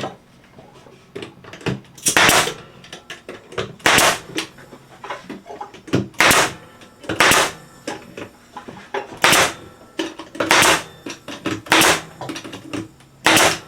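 Pneumatic staple gun firing staples into cedar fence pickets: about eight sharp shots one to two seconds apart, with lighter knocks of the boards being handled between them.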